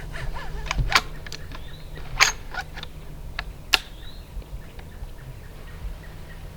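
Footsteps of people walking outdoors, with irregular sharp crunches and clicks, the loudest about a second, two seconds and nearly four seconds in. Faint short bird calls come in a few times.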